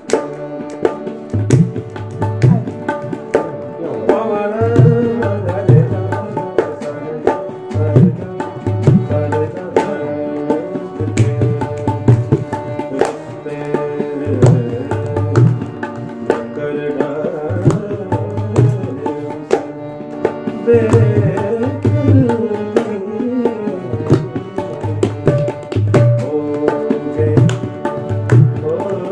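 Indian classical-style music: tabla playing a rhythmic pattern with deep, booming bass-drum strokes, under a wavering melody over held drone tones.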